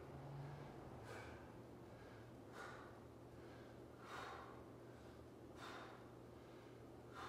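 A man breathing out hard in time with resistance-band rows, five faint breaths about a second and a half apart. A steady low hum runs underneath.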